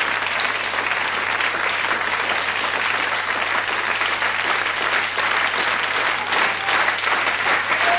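Live audience applauding: dense, steady clapping from a large crowd.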